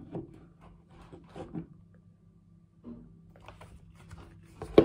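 Handling noises from a Glock 18C gas-blowback airsoft pistol turned over in the hands: light clicks, taps and rustles of its polymer frame and parts, with one sharp click near the end.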